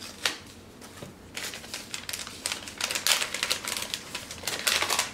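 Packaging wrappings crinkling and rustling in quick, crackly bursts as they are unwrapped by hand, starting about a second and a half in and getting busier toward the end.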